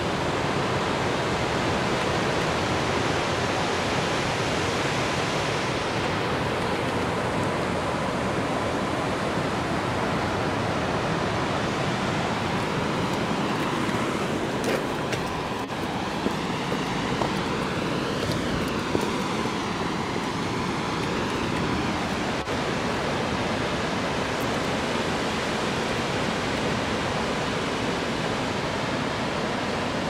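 Vettisfossen waterfall: a steady rush of falling water, even and unbroken, with a few faint clicks about halfway through.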